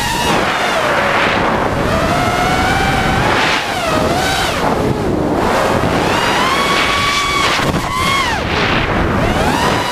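ImpulseRC Reverb FPV racing quadcopter's brushless motors and propellers whining, the pitch rising and falling again and again with the throttle, over wind noise on the onboard camera's microphone.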